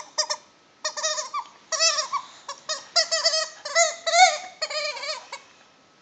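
Rubber squeaky dog toy squeaking over and over in quick runs as a boxer dog bites and tugs on it, each squeak bending up and down in pitch; the squeaking stops shortly before the end.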